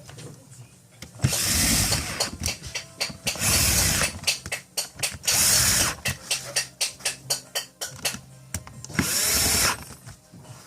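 Cordless drill-driver motor run in four short bursts of about half a second to a second, with a run of rapid clicks between the bursts in the middle.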